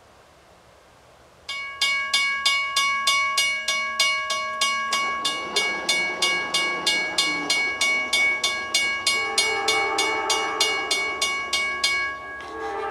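A railroad crossing bell starts ringing suddenly about a second and a half in, about three strikes a second, and stops shortly before the end. Under it a train horn sounds from about the middle, getting louder as the train approaches.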